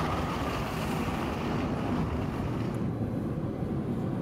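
Steady low rumble of a heavy vehicle's engine running, with a hiss above it that drops away about three seconds in.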